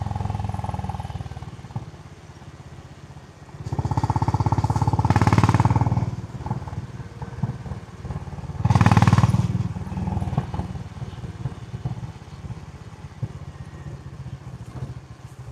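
Honda CB350 H'ness (GB350) single-cylinder engine through its stock exhaust, heard while riding. It eases off about two seconds in, then opens up hard around four seconds in and again around nine seconds in, dropping back to a lower, steady running note between and after.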